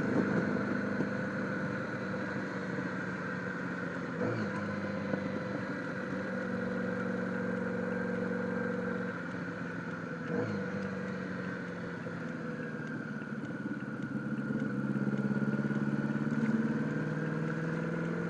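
1976 Honda Gold Wing GL1000's flat-four engine running under way through loud old mufflers, heard from a helmet microphone. The engine note shifts in pitch a few times and climbs near the end, with two short clicks about four and ten seconds in.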